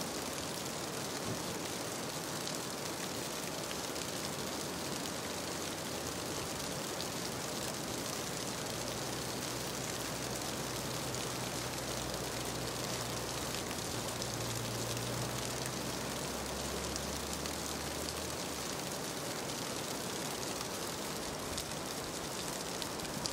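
Steady rush of a stream running over rocks. A low engine drone comes in about eight seconds in and fades out about ten seconds later.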